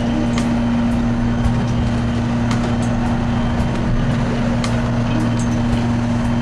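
Fishing boat's engine running with a steady, unchanging drone while trolling, with scattered sharp clicks and taps over it.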